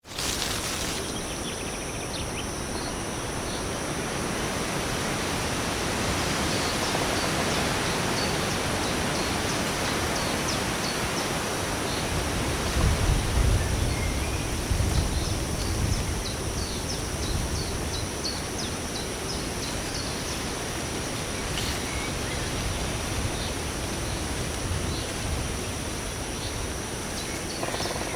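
Daytime forest ambience: a steady hiss of background noise with scattered short bird chirps, and a low rumble for a few seconds near the middle.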